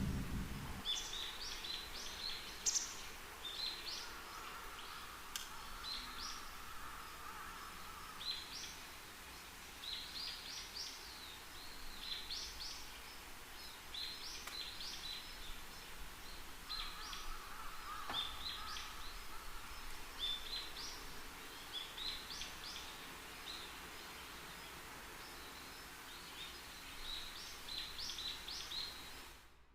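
Faint birds chirping in short upward chirps, in clusters every second or two, over quiet outdoor background noise. They cut off suddenly near the end.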